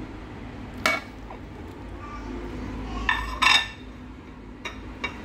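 A ceramic plate and utensil clinking against a metal cooking pot as grated vegetables are tipped and scraped into it. There is a sharp clink about a second in, a cluster of louder clinks around three seconds in, and a few light taps near the end.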